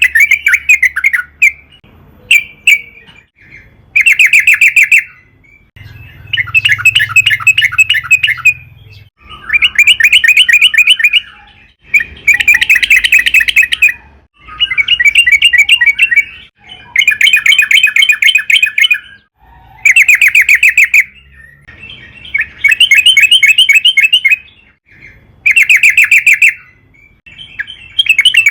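Sooty-headed bulbul (trucukan) singing: loud, rapid rattling trilled phrases, each a second or two long, repeated about ten times with short pauses between.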